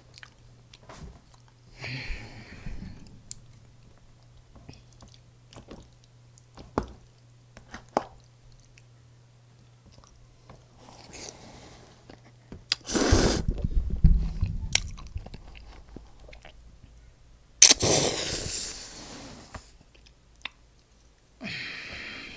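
Close-miked eating: quiet chewing, then two loud crunchy bites into a fried breaded pork cutlet, about halfway through and again a few seconds later, each followed by chewing.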